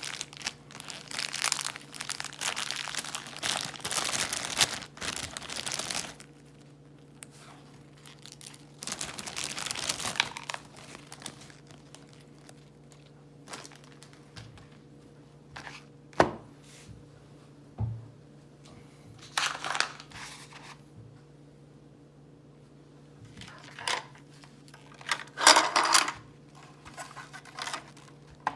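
Toy packaging being torn open and crinkled: a long stretch of rustling and tearing at the start and another burst a few seconds later, then scattered clicks and short rustles as pieces are handled. A faint steady hum runs underneath.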